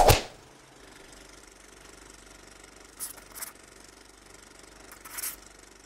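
A sharp hit at the start, then a faint steady mechanical hum with two short swishes, one about three seconds in and one near the end.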